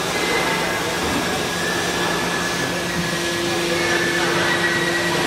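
Hydraulic power unit of a 250-ton double-action deep-drawing press running, a steady motor-and-pump hum with a high whine. A second, lower tone joins about three seconds in.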